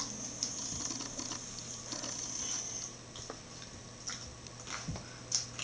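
Soft, scattered clicks and scuffling as a six-week-old boxer puppy mouths and climbs on an adult boxer, with a slightly louder pair of clicks near the end.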